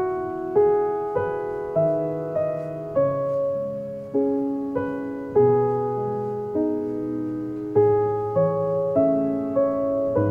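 Slow solo piano background music: single notes and chords struck roughly every half second, each left to ring and fade.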